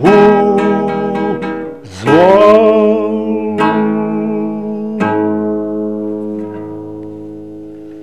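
An elderly man sings the closing phrase of a Czech song to his own classical guitar, gliding up into a long held final note. Two last strummed chords, about 3.5 and 5 seconds in, ring on and slowly fade away.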